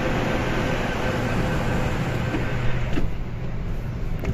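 MTR C-train standing at a platform with a steady hum of its running equipment and ventilation and a rapid repeating beep of the door-closing warning. About three seconds in the doors shut with a knock, and the platform noise turns muffled.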